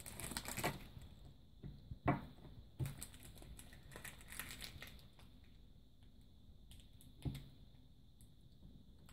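Thin clear plastic wrapper crinkling as a small toy bag is pulled open, with three light knocks as small plastic toy pieces are set down on a table, the loudest about two seconds in.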